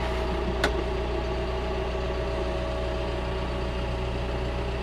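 Tractor engine running steadily at low speed, with a single sharp knock about half a second in.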